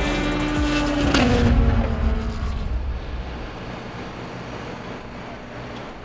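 A race car passing at speed: its engine note is loud, then drops in pitch as it goes by about a second in and fades away over the next second or two, leaving a faint, steady rushing.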